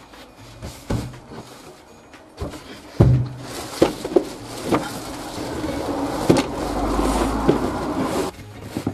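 Wooden bed boards being handled and fitted into the back of a small van: a few sharp knocks, then a longer stretch of scraping and shuffling with more knocks, until it stops shortly before the end.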